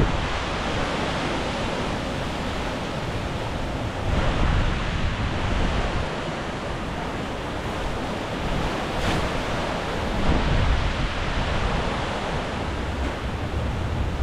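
Hurricane Ian's winds gusting through palm trees, with wind buffeting the microphone as a heavy low rumble. The wind swells about four seconds in and again around ten seconds.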